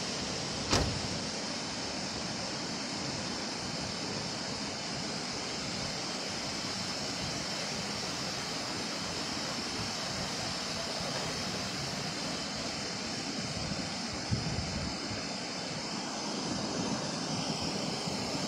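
Storm runoff rushing down a hillside in cascades and over a road: a steady rushing of water. A sharp knock comes less than a second in and a smaller one later.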